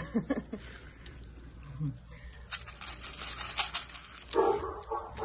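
A puppy eating dry kibble from a stainless steel bowl: a run of quick clicks and rattles of kibble against the metal, busiest about halfway through, as she scoops it up and swallows it without chewing, her broken jaw having healed fused.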